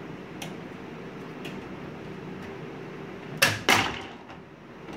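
Two sharp plastic clicks close together, a little past halfway, as hands work the tabs of a desktop computer case's front drive-bay panel, over a steady room hum with a few faint ticks.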